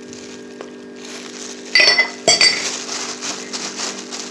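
Two sharp clinks with a ringing note, about half a second apart, a little under two seconds in. Then plastic gloves crinkle as hands squeeze a dye-soaked, paper-towel-wrapped egg.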